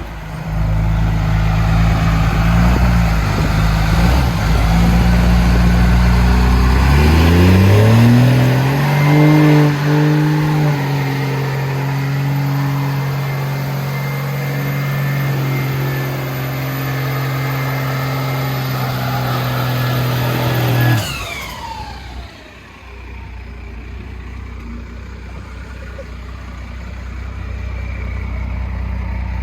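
Truck engine running, rising in speed about 7 seconds in and holding steady at the higher speed. About 21 seconds in it cuts off suddenly and a high whine falls away, leaving a lower steady hum.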